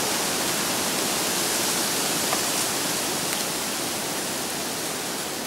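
A steady, even hiss that eases slightly toward the end, with a couple of faint ticks.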